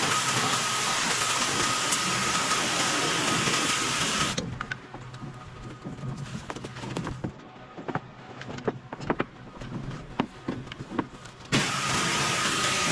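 Pressure washer spraying with a steady rushing hiss that cuts off abruptly about four seconds in. A quieter stretch of scattered clicks and knocks follows, then the spray starts again abruptly near the end.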